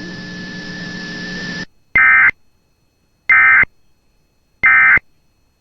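A steady radio hiss with a faint steady tone cuts off, then three short, identical data bursts sound about 1.3 seconds apart: the Emergency Alert System end-of-message (NNNN) tones closing the warning.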